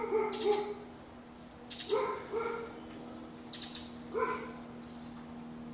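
A dog barking in short bursts: a quick run of three barks at the start, two more about two seconds in, and a single bark about four seconds in, over a steady low hum.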